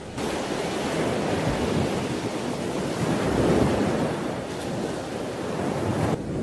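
Ocean waves surging and crashing, a continuous rush that starts abruptly, swells about halfway through and cuts off sharply near the end, leaving a fainter, duller rumble of sea beneath.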